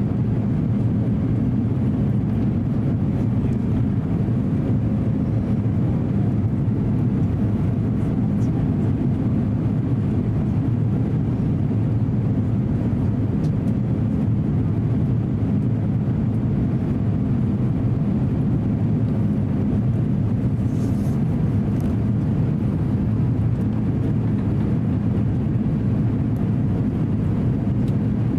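Steady low roar inside the cabin of an Airbus A350-900 on final approach, from its Rolls-Royce Trent XWB engines and the airflow past the fuselage, with a faint steady hum.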